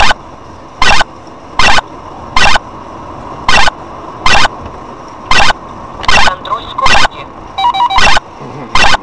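Radar detector of a cheap Chinese 2-in-1 dashcam giving its alert: short, harsh, loud beeps about once a second, around ten in a row. It beeps like this whether or not there is a camera around, the false alarms of a detector that beeps at everything.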